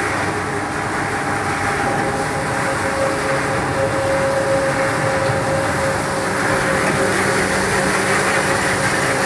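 Snack production-line machinery running: an even mechanical noise with a steady hum through it that grows stronger about two seconds in.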